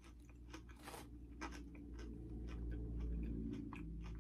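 Lay's Limón potato chips being chewed, with irregular crisp crunches and crackles, over a low background hum that swells about midway.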